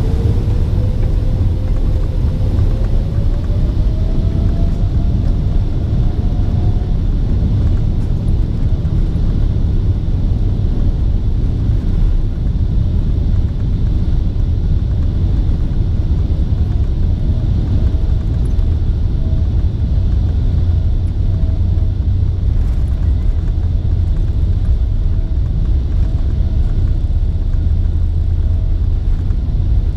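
Boeing 777-300ER's GE90 jet engines heard inside the cabin: a steady low rumble. A whine rises in pitch over the first several seconds, and a steady whine comes in about halfway through.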